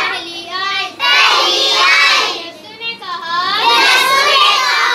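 A group of children chanting a Bible verse together in a loud singsong, in two phrases with a short pause between.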